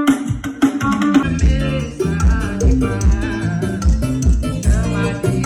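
Brazilian forró/piseiro music played loud, with plucked guitar lines over a steady thumping bass beat.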